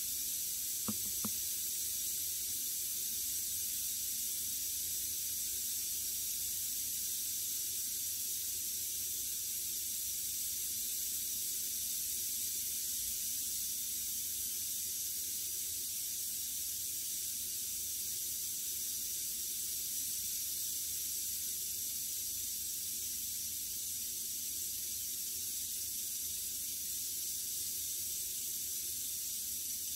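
Western diamondback rattlesnake rattling its tail: a steady, unbroken buzz with no change in level. Two brief ticks about a second in.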